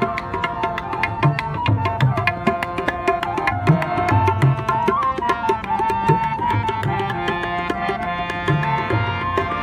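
Instrumental background music: a fast hand-drum rhythm with deep, repeating bass strokes under a held, wavering melody line.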